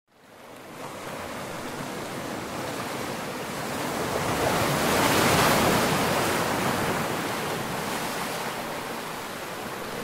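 Ocean waves washing in: a steady surf that fades in, swells to its loudest about halfway through, then eases off again.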